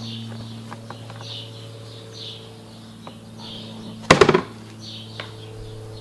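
Plastic grass collection box of an Einhell GE-CM 43 Li M cordless lawn mower being handled and lifted out of the mower: a few light plastic clicks, then a short, loud clatter about four seconds in. Birds chirp in the background over a steady low hum.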